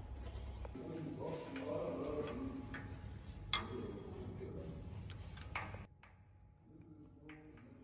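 Metal clicks and clinks as a steel cable pulley and its pin are fitted into the base of a two-post car lift column. One sharp clink about three and a half seconds in is the loudest sound.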